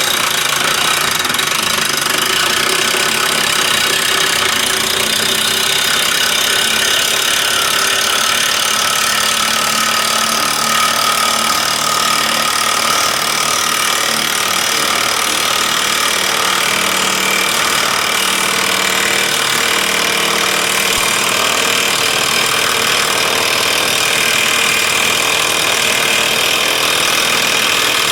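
Cordless 20-volt impact wrench hammering without a break for the whole time, a loud, steady rattling as it drives down to crush cans.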